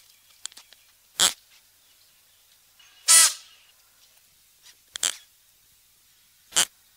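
Klipspringer calling: four short, sharp, loud calls, one about every one and a half to two seconds.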